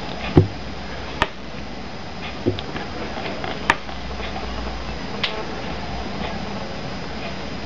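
A handful of short, sharp taps and clicks, about five spaced a second or so apart, as a Samsung Galaxy Y smartphone is held in the hand and its touchscreen tapped, over steady background noise; the first tap has a dull thump to it.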